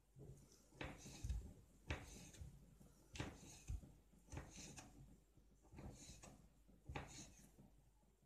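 Faint knocks and clicks of objects being handled and set down, about nine short hits spaced roughly half a second to a second apart, a few with a dull thump.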